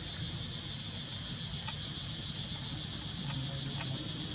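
Steady high-pitched insect chorus over a low rumble, with a few faint ticks.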